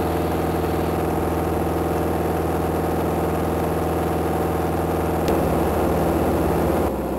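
Beechcraft Sundowner's four-cylinder Lycoming engine and propeller droning steadily in flight, heard inside the cockpit. About five seconds in there is a short click and the pitch of the drone shifts slightly.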